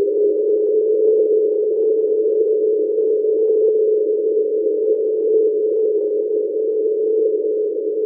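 Steady ambient drone: one held low tone inside a narrow band of rushing noise, unchanging throughout.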